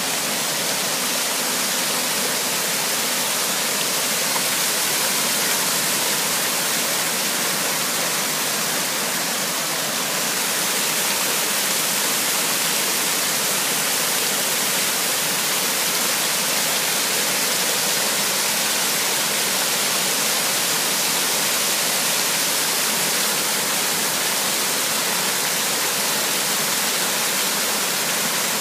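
Creek water pouring over small rock-ledge cascades: a steady rushing and splashing.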